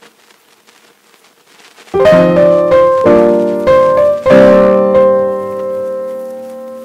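Piano music: a few chords struck about once a second, starting about two seconds in, the last one held and slowly fading.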